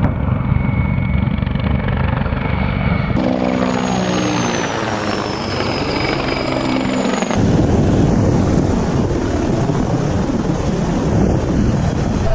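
Mi-24-type military attack helicopters in flight: a steady rotor and engine noise with a high turbine whine that dips in pitch and comes back. The sound changes abruptly twice, about 3 s and 7 s in.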